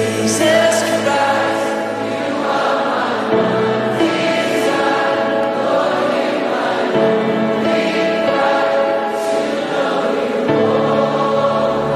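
Worship music: a choir sings long held chords over instrumental backing, and the chord changes every few seconds.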